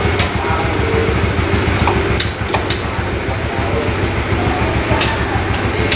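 A steady low droning hum, with a few short clicks and faint indistinct voices.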